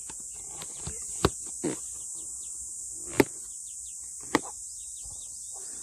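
A steady high-pitched insect drone, with several sharp clicks over it, the loudest about three seconds in.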